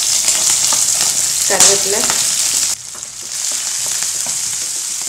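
Sliced shallots and green chillies sizzling in hot oil in a frying pan, over mustard seeds and urad dal, as the tempering for a South Indian kootu. The sizzle drops abruptly quieter a little under three seconds in and carries on at the lower level.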